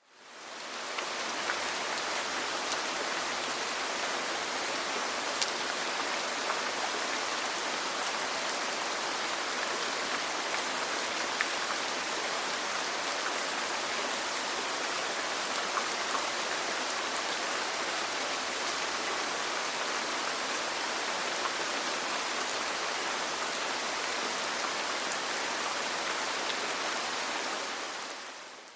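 Steady rain falling, a dense even hiss with faint scattered drop ticks, fading in over the first second and fading out near the end.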